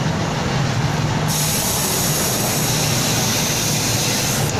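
Loud hiss of compressed air escaping, starting abruptly about a second in and cutting off sharply some three seconds later, over a steady low hum.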